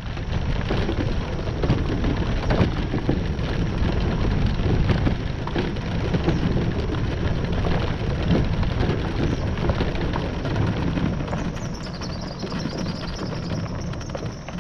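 Towing noise: the rumble and rattle of a kayak trailer rolling over a gravel road, with wind rushing over the microphone.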